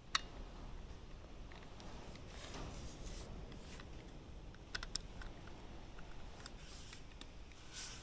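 Faint small metal clicks and short scrapes from hand-fitting a cutting blade into the clamp head of a Van Alstine GB1000 tire groover, with an Allen key on the clamp screws. There is a sharp click just after the start and a couple more about five seconds in.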